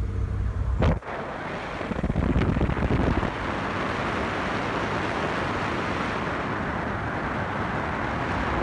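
Wind rushing and buffeting over the microphone in a moving TVR sports car, after about a second of the car's engine running steadily; the wind noise is heavier for a moment around two to three seconds in.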